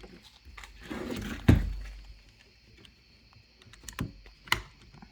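Hand tool clicking and knocking against metal while a hose clamp is worked into place: scattered light clicks, with one sharp knock about a second and a half in and a few more clicks near the end.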